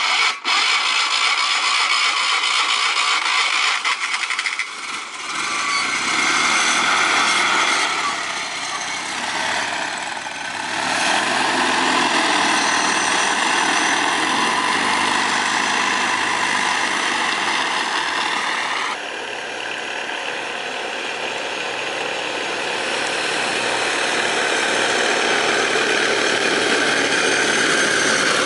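Car engine fitted in a scooter starting suddenly and running loudly while the scooter is ridden, its level dipping and rising as it goes.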